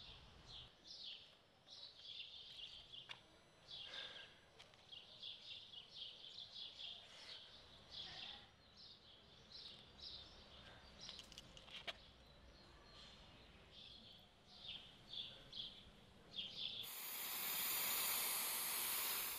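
Birds chirping in short, repeated high calls; near the end, an aerosol spray-paint can hisses loudly and evenly for about two and a half seconds, then cuts off sharply.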